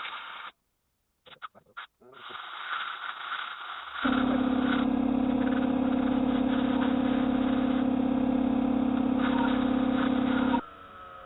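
A machine running with a steady, even hum that starts abruptly about four seconds in and cuts off just as suddenly near the end, after a short stretch of quieter workshop noise.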